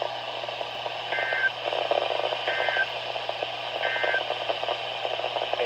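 Three short, warbling two-tone data bursts of an Emergency Alert System SAME end-of-message code, about 1.3 seconds apart, received off a NOAA Weather Radio broadcast. They sit over steady radio static and a low hum.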